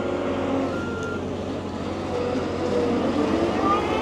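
Caterpillar wheel loader's diesel engine running as it carries a car on its forks, its pitch rising in the last couple of seconds as the engine revs up.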